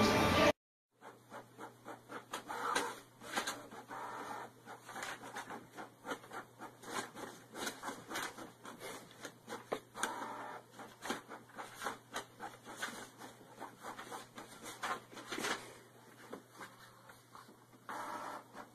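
Desktop inkjet printer printing: a quick, irregular run of mechanical clicks and ticks over a low steady hum as the pages feed out, with paper rustling where a cat paws at the sheets.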